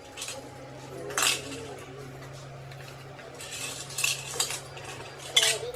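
Metal parts being handled, clinking and clattering in a handful of sharp strikes with the loudest near the end, over a steady low hum.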